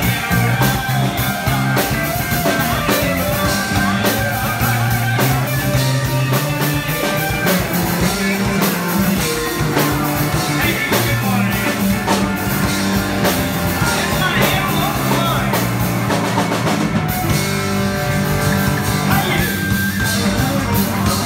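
Live band playing rock music on electric guitar, bass guitar and drum kit, with a steady drum beat.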